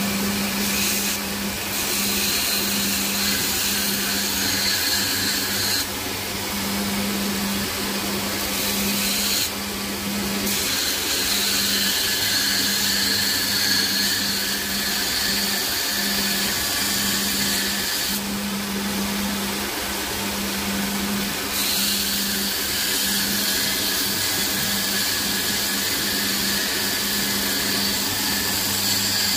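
Belt grinder running with a steady motor hum while a steel chisel is ground on the abrasive belt, a hissing grind that shifts in tone every few seconds as the blade's contact changes.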